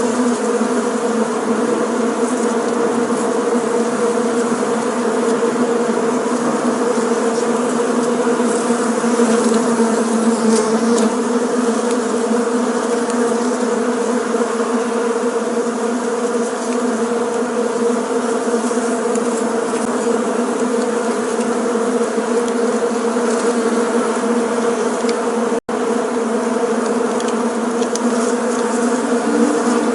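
Many bees buzzing in flight, a steady, dense drone with a strong low hum and its overtones, broken by a momentary gap about 26 seconds in.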